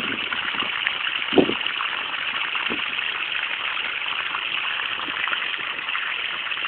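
Water from a garden hose running and splashing off a shovel into a taro patch, a steady rushing hiss. A brief thump about a second and a half in.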